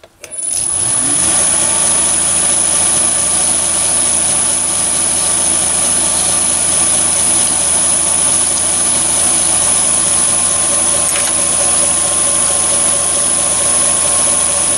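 Chinese mini lathe starting up about a quarter second in and spinning up within about a second, then running steadily with the spindle at about 950 rpm. The motor and gear drive give a steady hum with a high-pitched whine over it.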